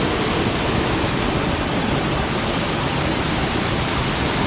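Small waterfall sheeting down a rock face: a loud, steady rush of falling water.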